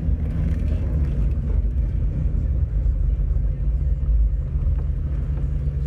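2001 Ford Mustang engine running through its new exhaust, a steady deep rumble.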